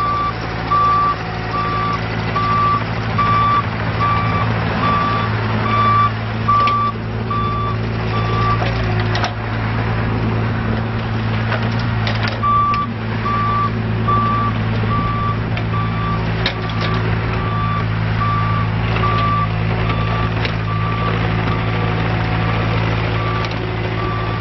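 Mini excavator's travel alarm beeping a bit under two times a second, stopping for about four seconds midway and then resuming, over the steady running of its Isuzu diesel engine.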